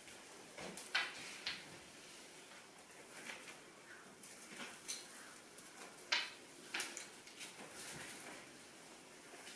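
Irregular soft swishes of a fiber-optic light whip being swung through the air, mixed with rustling from the performer's moves. The strongest swishes come about a second in and around six seconds in.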